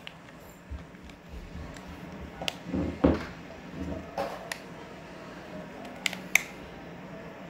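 Plastic Lego-compatible brick and baseplate being handled and pressed together, giving a few sharp plastic clicks with a rustle of handling in the middle and two clicks close together about six seconds in.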